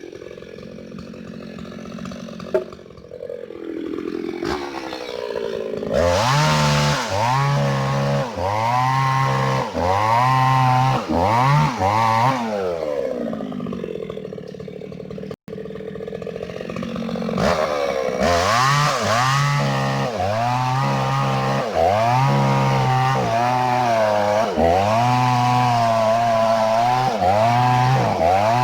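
Hyundai mini chainsaw cutting through rubber tree wood, its speed repeatedly sagging and recovering about once a second as the chain bites. There are two spells of cutting with a quieter lull between them about halfway through.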